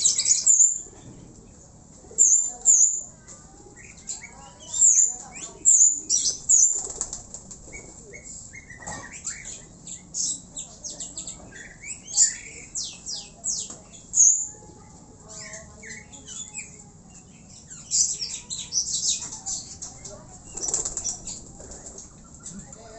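Young racing pigeons flapping their wings in short, loud bursts again and again as they take off and flutter up.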